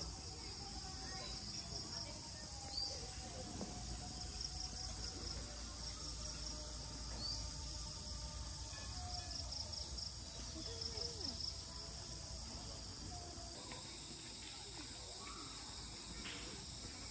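Insects chirping in repeated trains of rapid pulses over a steady high-pitched insect drone, with a soft low background hum beneath. The high drone thins out abruptly near the end.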